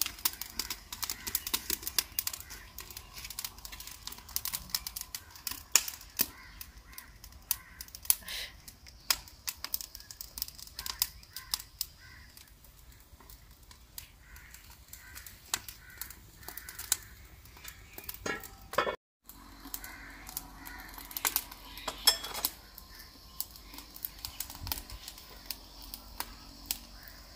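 Firewood crackling and popping in a wood-burning chulha, many sharp irregular clicks, as the fire burns under a pan of heating oil.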